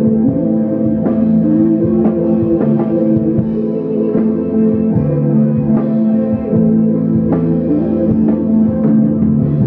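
Live rock band playing: held guitar chords and a moving melodic line over a drum kit.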